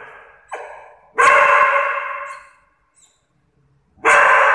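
Small short-haired dog barking three times, the first softer and the last two loud, each bark trailing off over about a second. They are alarm barks at a person wearing a horror mask.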